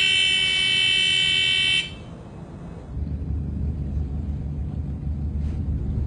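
Ship's engine order telegraph alarm buzzing steadily for about two seconds after being set to dead slow ahead, then, about three seconds in, the low rumble of the ship's engine starting up and holding steady.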